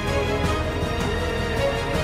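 Background music laid over the video, steady throughout.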